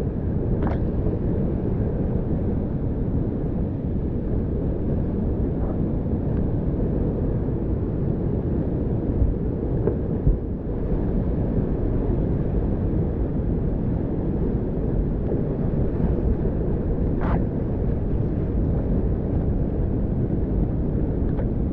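Whitewater rushing steadily around a kayak: a dense, bass-heavy noise of fast-moving creek water that holds at an even level throughout.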